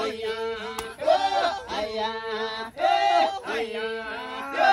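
Maasai group chanting: several voices in short phrases repeating about once a second over a steady held note.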